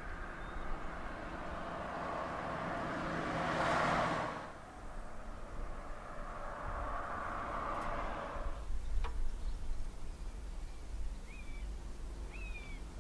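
Low steady car-engine hum with a vehicle sound that swells to a peak about four seconds in and dies away, and a weaker swell that fades out past eight seconds. A single sharp click about nine seconds in, and two short bird chirps near the end.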